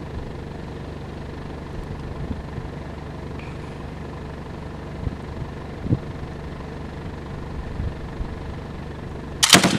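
Steady low rumble with a few faint thumps, then near the end a single loud shot from a DShKM 12.7 mm heavy machine gun.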